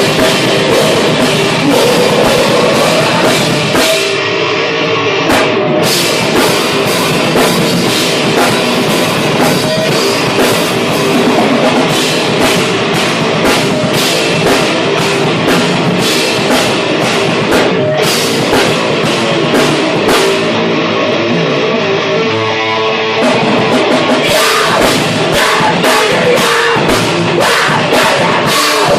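Heavy metal band playing live, drum kit and distorted guitars at full volume. The cymbals drop out briefly about four seconds in and again around twenty seconds in.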